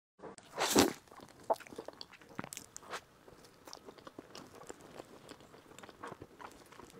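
Close-miked eating of a soft tiger-skin roll filled with pork floss and chicken cutlet. A loud crunch comes just under a second in and another sharp one at about a second and a half, then chewing with many small wet mouth clicks.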